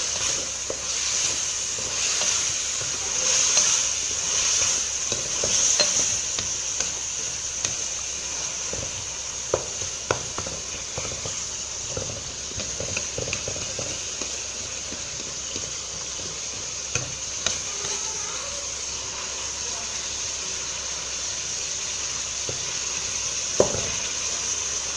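Raw chicken pieces sizzling as they fry in hot ghee in a kadhai, with a wooden spatula stirring and scraping through them, at the stage where the chicken begins to give off its water. The stirring comes in surging strokes for the first several seconds, then the sizzle runs steadily, broken by a few sharp clicks of the spatula against the pan.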